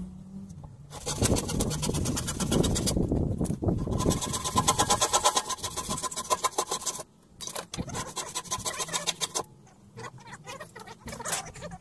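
A handsaw cutting through a wooden board in quick, rasping strokes, in two spells with a short break, the second stopping about seven seconds in; a few light knocks follow.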